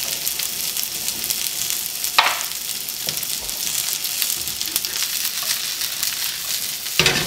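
Sliced zucchini sizzling in hot coconut oil in a cast iron skillet, a steady frying hiss. A sharp knock comes about two seconds in, and a brief louder burst of sizzling near the end.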